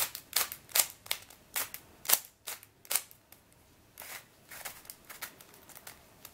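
Plastic clacks of a new, stiff MF8 Square-1 v1 puzzle as its layers are turned and snapped into place by hand: sharp separate clacks about every half second, then softer, quicker clicking from about four seconds in.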